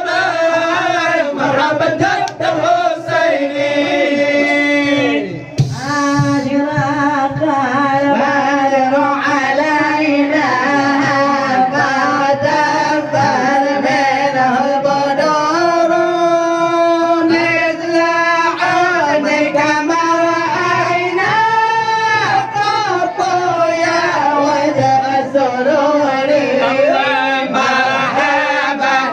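A group of men singing an Acehnese syair together into microphones, a chanted melody with long held, wavering notes.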